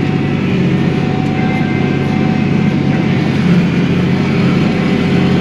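Kioti NS6010 compact tractor's diesel engine running steadily and loud as the loader pushes a slash pile.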